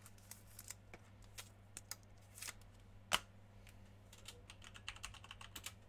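Faint, irregular typing on a computer keyboard, with one sharper keystroke about three seconds in and a quicker run of keys near the end. A steady low hum sits beneath.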